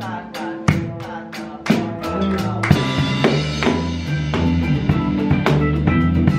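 Drum kit played with a band: strong drum hits about once a second, then about two seconds in bass and electric guitar come in with sustained notes under the beat.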